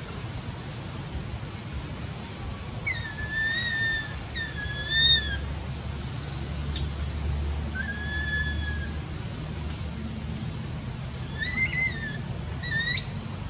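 Baby macaque giving high-pitched, drawn-out coo calls, about five of them with pauses between, the distress calls of an infant looking for its mother.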